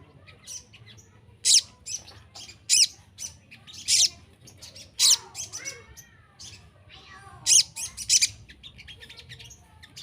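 Sunbird (sogon) calling: loud sharp high-pitched calls about every second or so, six in all, with quieter chirps and twitters between them.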